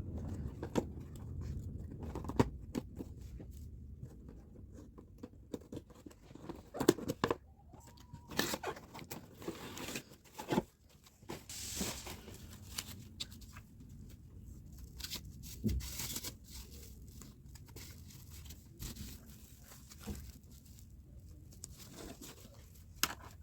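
Scattered small handling sounds: irregular taps, clicks and brief rustling or tearing noises, with the loudest knocks about 7 and 16 seconds in.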